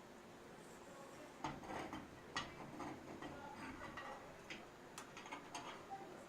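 Faint, irregular clicks and taps with some rustling, typical of a metal light-fixture shade and its finial being handled and fitted back on.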